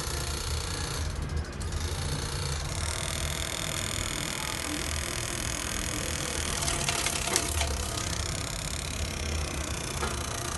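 Steady low mechanical hum, with a short run of clicks and rattling about seven seconds in.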